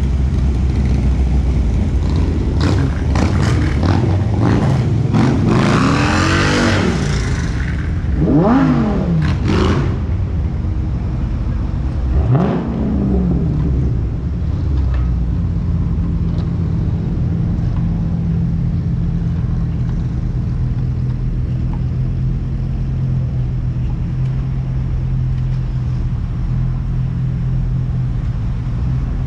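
Sports-car engines revving and accelerating away, several rising and falling pitch sweeps in the first ten seconds or so, over the steady rumbling idle of a Dodge Charger SRT 392 Hemi V8. From about fifteen seconds on, only the even idle remains.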